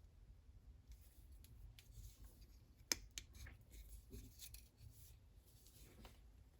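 Faint handling of a Leatherman Surge multitool: quiet rubbing and a few light clicks, the sharpest about three seconds in, as its stiff fold-out tools are worked.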